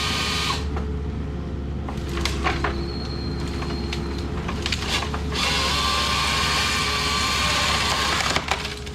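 Diesel engine of an 8-ton excavator running steadily while its GMT040 hydraulic grapple saw cuts through wood. The saw's high whining cut sounds briefly at the start and again from about five seconds in until near the end, with wood cracking and snapping in between.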